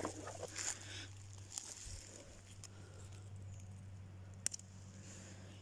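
Faint rustling of dry leaf litter and undergrowth, then a single sharp snap about four and a half seconds in as a wild asparagus spear is broken off by hand at its base.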